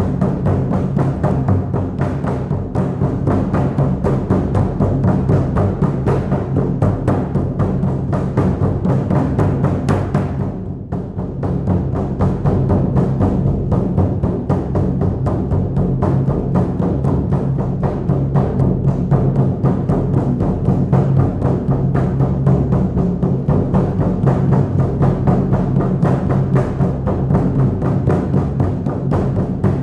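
Shamanic frame drum beaten in a fast, steady, repetitive rhythm with deep booming strokes. It dips briefly in loudness about ten seconds in, then carries on.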